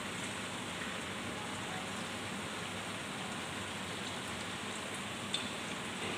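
Steady sizzling hiss of cooking oil frying, with faint crackles and a small click about five seconds in.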